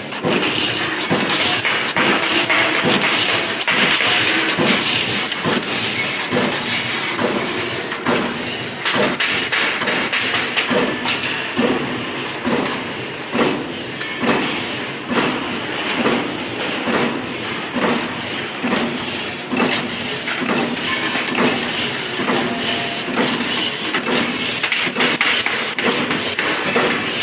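Transformer wound-core cut-to-length machine running, steel strip feeding through its rollers while the shear cuts it to length with a steady series of sharp metallic clacks, about two a second, over continuous machine noise.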